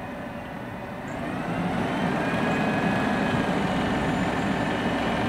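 Automated side-loader garbage truck's engine running, then revving up and growing louder from about a second in as the truck pulls forward, with a rising whine that levels off into a steady tone.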